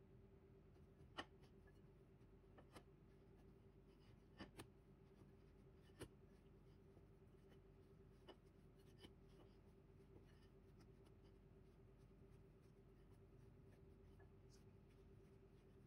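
Near silence with faint rubbing and a few scattered light taps of hands kneading bread dough in a ceramic bowl, over a faint steady hum.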